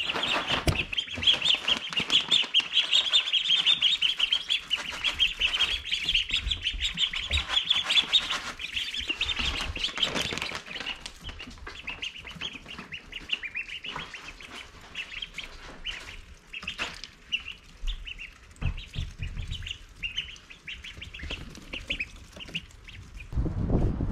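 A brood of ducklings peeping rapidly and continuously, excited at being offered mealworms, with many small clicks among the peeps. The peeping is densest for the first ten seconds or so, then thins out.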